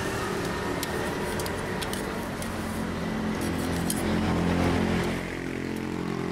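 A motor vehicle's engine running close by in street traffic, louder for a couple of seconds past the middle, with scattered light metallic clinks over it.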